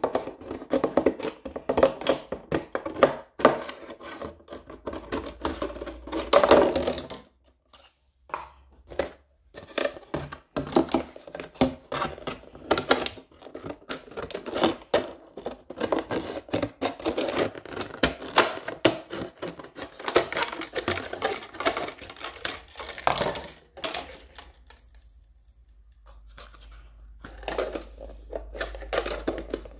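Scissors snipping through a thin plastic water bottle, the plastic crackling and crinkling as it is cut and handled: a dense run of sharp snips and crackles. It goes quieter for a few seconds near the end, then more crinkling as the cut plastic is folded by hand.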